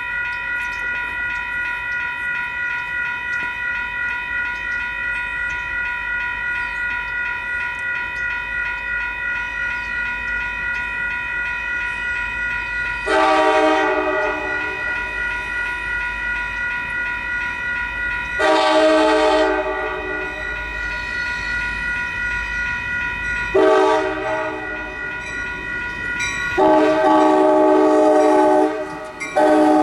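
Railroad crossing's electronic warning bells ringing steadily with a fast pulsing beat, while an approaching Amtrak Capitol Corridor train sounds its horn in the grade-crossing pattern: two long blasts, a short one, then a longer held blast as the train reaches the crossing, with another short blast starting at the very end.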